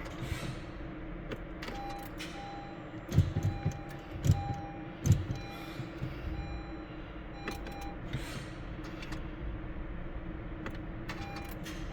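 2015 Honda Civic Si clicking about three times, a second or so apart, on a start attempt without the engine turning over or catching. A steady electrical hum and short repeated beeping tones sound throughout.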